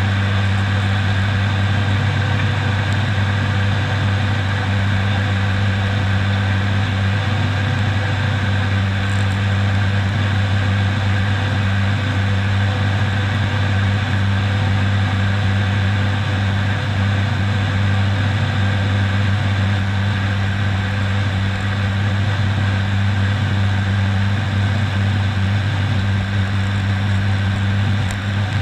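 Steady cabin drone in the cockpit of an ATR 72-600 turboprop in flight: a strong low propeller hum under an even rush of airflow noise.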